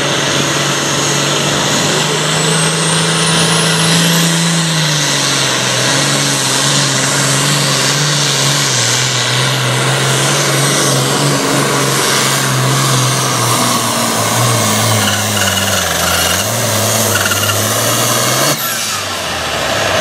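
International super farm pulling tractor's turbocharged diesel engine running hard under load while pulling the sled. A faint high whine rises over it in the first few seconds. The engine note holds steady, then drops in pitch about four seconds in and wavers lower for the rest.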